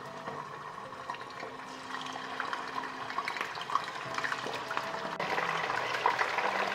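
Chicken pieces frying in hot oil in a pan, a steady sizzle with scattered crackles and spits, growing louder about five seconds in.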